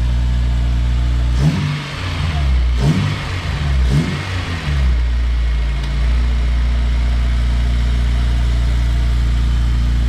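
Honda S2000's freshly rebuilt F20C2 2.0-litre four-cylinder engine idling on its first run, revved up and down three or four times in quick succession about a second and a half in, then settling back to a steady idle.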